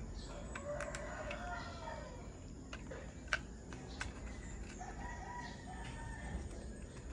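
A bird calls twice, each a long call that rises and falls: one about a second in and a fainter one near five seconds. Between them come a few sharp clicks, the loudest in the middle.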